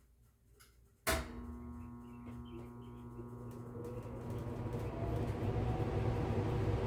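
Miller E3EB electric furnace switching on in heat mode: a sharp click about a second in, then the blower motor hums and comes up to speed, with a faint rising whine and a rush of air that grows steadily louder.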